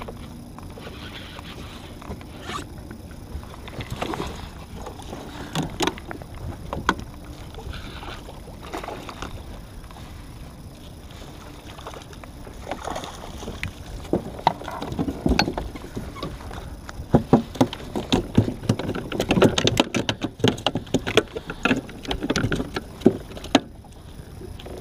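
Knocks, clatter and water sounds around a plastic kayak while a hooked fish is fought and brought in. The knocks are sparse at first and come thick and louder over the last third.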